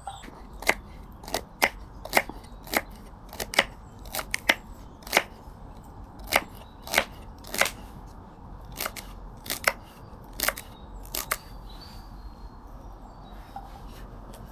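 Knife chopping vegetables: about twenty sharp, unevenly spaced chops that stop about eleven seconds in.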